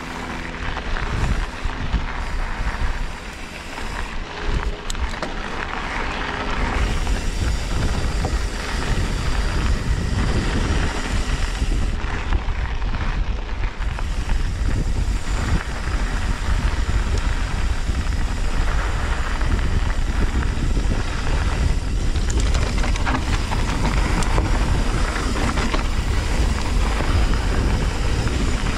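Mountain bike riding over a rough dirt trail: tyre and frame noise under a steady low rumble of wind on the microphone, a little uneven for the first few seconds.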